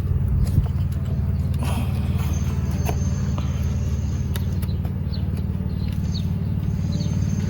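An engine idling steadily, a constant low hum, with a few light clicks over it.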